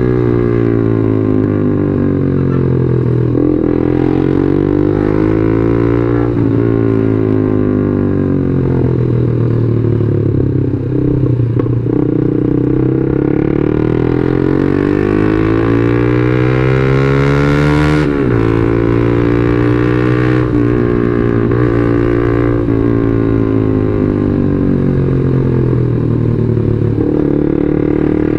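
Yamaha Jupiter MX 135 single-cylinder four-stroke engine under way, its pitch climbing and falling again and again as the rider works the throttle and gears. A long climb breaks off with a sudden drop about eighteen seconds in.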